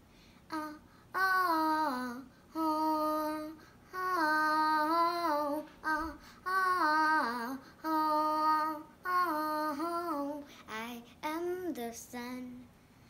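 A young girl singing without accompaniment: held notes that bend up and down, in short phrases with brief pauses between.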